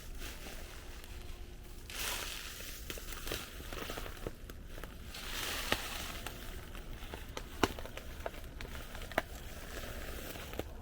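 Footsteps crunching on a rough path, with a few sharp clicks standing out toward the middle and end.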